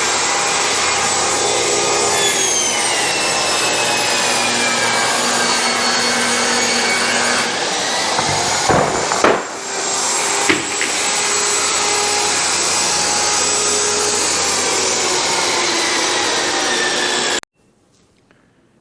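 Power saw running and cutting through 5/8-inch plywood, its motor whining steadily with small shifts in pitch as it takes the load. It dips briefly about halfway through and then cuts off abruptly near the end.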